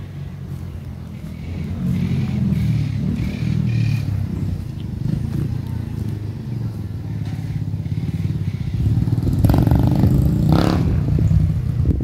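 A motor vehicle engine running, growing louder about two seconds in and loudest near the end.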